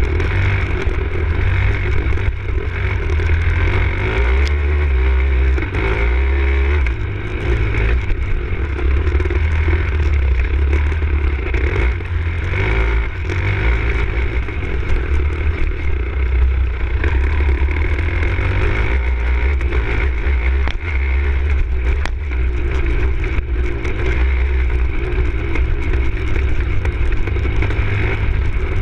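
Enduro motorcycle engine running continuously under load while the bike is ridden over a rough, muddy trail. A heavy low rumble sits under it, with scattered short knocks from the bumps, as heard through an action camera mounted on the bike.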